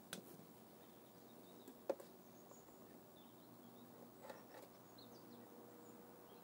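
Near silence with small clicks and rustles of thin wires being handled and twisted together, one sharper click about two seconds in. Faint high chirps sound in the background.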